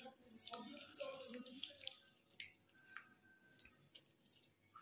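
Faint, irregular wet squelching and smacking of a hand mixing thick whisked yogurt into mustard-paste-coated fish pieces in a steel bowl.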